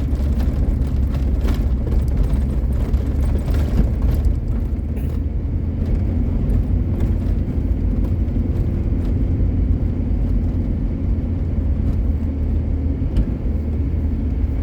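Car driving along a rough road: a steady low engine and road rumble, with a few knocks and rattles in the first four seconds.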